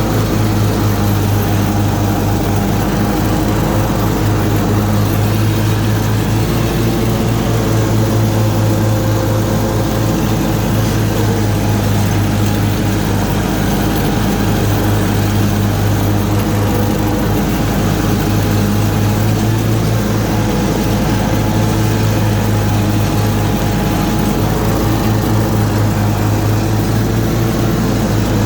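Zero-turn riding mower's 27 hp Kohler Command Pro engine running steadily with the mower deck blades engaged, cutting grass.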